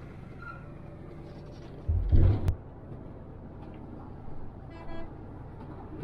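Volvo coach bus driving, a steady engine and road rumble, with a loud low thump about two seconds in and a brief high toot about five seconds in.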